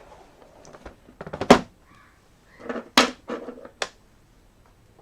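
Handling noise of a laptop being picked up and turned over to be opened: a few sharp knocks and rasping scrapes, the loudest knock about a second and a half in.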